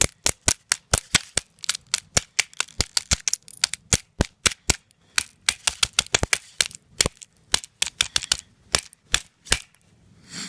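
A knife tip jabbing rapidly at the touchscreen of a Nintendo 3DS XL: a fast, irregular run of sharp clicks, about five a second, that stops shortly before the end.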